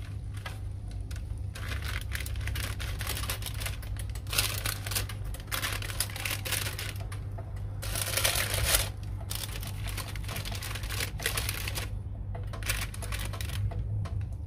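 A sheet of baking paper crinkling and crackling in repeated bursts as a hand presses and handles it on an electric grill, over a steady low hum.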